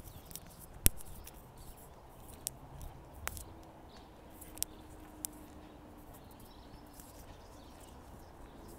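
Quiet outdoor street ambience with a few sharp clicks, the loudest about a second in, and a faint low steady hum through the middle.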